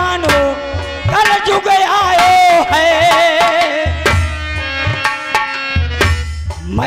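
Dehati dhola folk music: a drawn-out melody line that wavers and glides in pitch, over hand-drum strokes.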